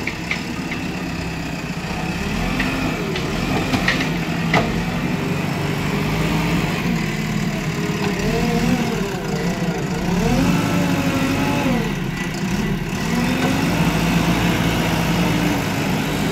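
JCB backhoe loader's diesel engine running under load while the front bucket pushes and lifts soil, its pitch rising and falling again and again. A few sharp knocks come about two to five seconds in.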